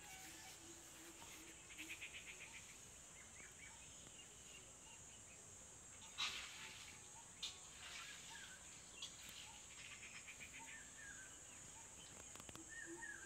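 Faint countryside ambience: a steady high insect drone with scattered bird chirps and short rapid trills. There is a single sharp knock about six seconds in.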